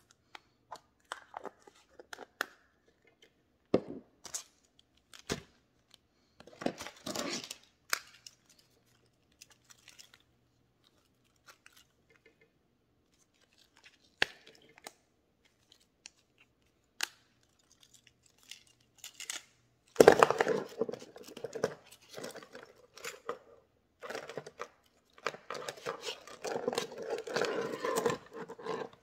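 Small handbag items being handled on a table. Scattered clicks, taps and short rustles come from a plastic cream jar's lid and other small items. From about twenty seconds in there is a longer, louder run of rattling and rustling as a small leather pouch and a bunch of keys are handled.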